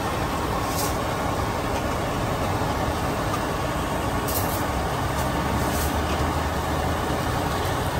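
Steady street traffic noise with a low engine rumble from passing buses and trucks.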